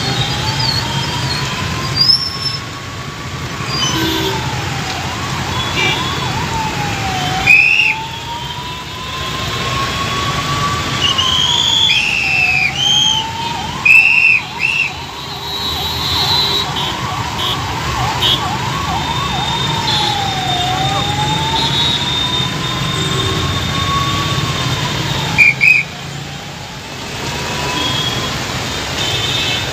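An emergency-vehicle siren wailing, slowly rising and falling every six to eight seconds, with stretches of quicker yelping sweeps. It sounds over the steady hiss of heavy rain and traffic on a wet road. Short, loud, high-pitched toots cut through several times, loudest about 7, 14 and 25 seconds in.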